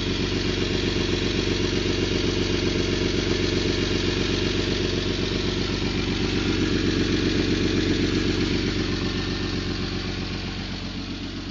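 Toyota Land Cruiser FJ80's 3F-E 4.0 L inline-six idling with a fast, steady pulsing from a loud exhaust leak at the left-most catalytic converter by the O2 sensor. The sound eases off slightly near the end.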